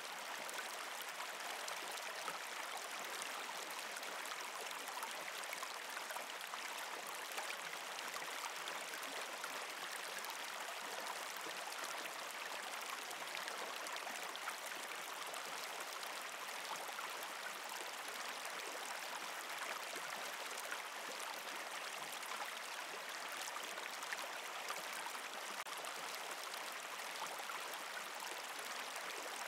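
An even, unbroken rush of running water, a steady hiss with fine crackles through it.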